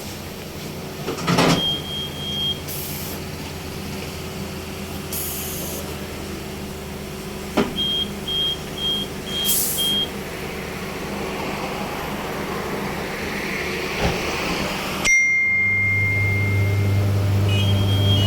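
A tyre-changing machine at work as a car tyre is fitted onto its rim, with a few short hisses of compressed air and sharp clicks over a steady mechanical hum. A high beep, then a run of four short beeps, sound in the first half, and near the end a louder low motor hum starts abruptly.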